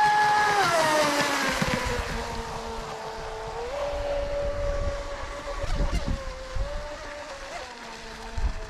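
Electric RC scale race boat's brushless outrunner motor (TP 4050, 1700kv on a 4S battery) whining at speed, with the hiss of its spray. It is loudest at first and its pitch falls over the first couple of seconds, then steps up about four seconds in and holds steady.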